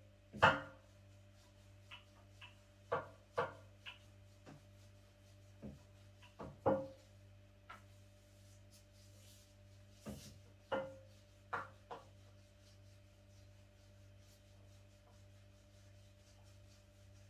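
Scattered knocks and clinks of kitchen items set down and handled on a wooden table, about a dozen in all, several of them leaving a brief ringing tone.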